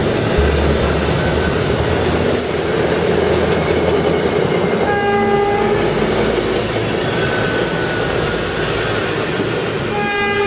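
SEPTA Silverliner IV electric commuter train passing close at speed, a steady loud rumble and clatter of wheels on rail. A horn sounds briefly twice, about five seconds in and again near the end.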